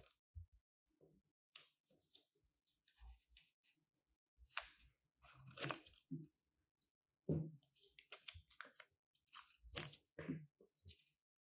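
Scissors snipping strips of glossy paper into small squares: an irregular series of crisp cuts, a second or two apart.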